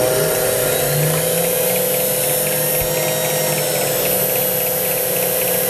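Mini mill spindle motor running with a steady whine while an end mill plunges into an aluminium block, cutting the recess for a cap-screw head.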